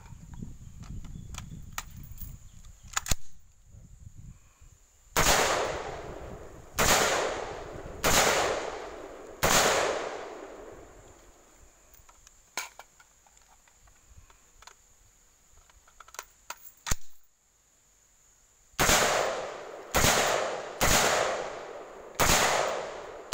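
M4-type rifle fired in single aimed shots: five shots spaced about a second and a half apart, each with a trailing echo, then a gap of several seconds with a few light metallic clicks of rifle handling, then five more shots about a second apart.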